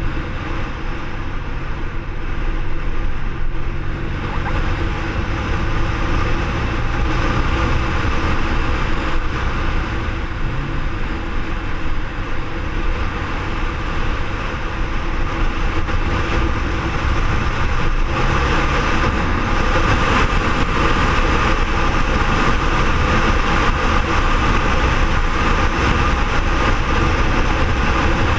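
BMW R1200R's boxer twin engine running at road speed, mixed with steady wind and road noise on the bike-mounted camera. It grows louder about two thirds of the way through as the pace picks up.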